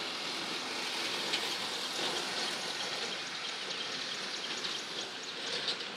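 Steady rain falling, a dense patter of small drops.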